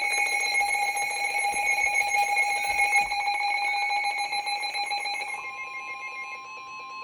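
Emergency Alert System alert tones for a severe thunderstorm warning: a harsh electronic alarm of several steady pitches pulsing rapidly, which about five seconds in gives way to a single plain steady tone.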